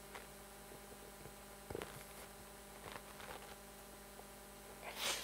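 Near silence: faint steady electrical hum, with a few faint short noises and a brief soft rush of breath-like noise near the end.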